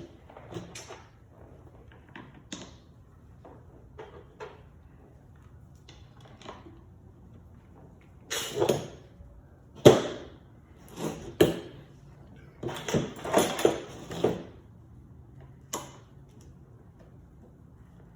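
Hand-handling of chainsaw parts and tools during reassembly: scattered light clicks, then a run of louder knocks and clatter in the second half, the sharpest a single knock about ten seconds in.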